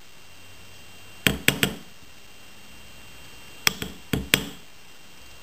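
Light hammer taps on a steel bench block, flattening and hardening the curve of a metal-wire earring hook: three quick taps about a second in, then four more a couple of seconds later, each with a short metallic ring.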